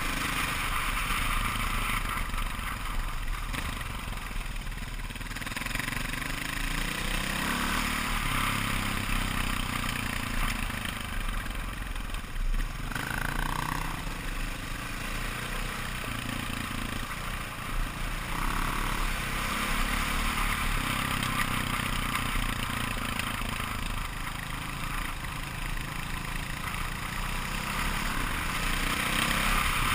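KTM 530 EXC single-cylinder four-stroke dirt-bike engine running while riding, its pitch rising and falling with the throttle, under a steady rush of wind.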